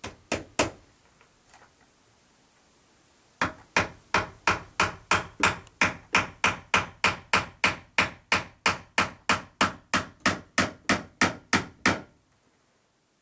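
Claw hammer driving nails into wooden window trim: three quick blows, then after a pause of about three seconds a long run of steady strikes, about three a second, that stops near the end.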